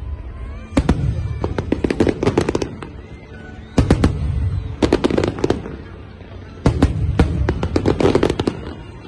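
Aerial fireworks exploding in three rapid volleys of sharp bangs, one about every three seconds, each volley a quick string of reports lasting a second or two.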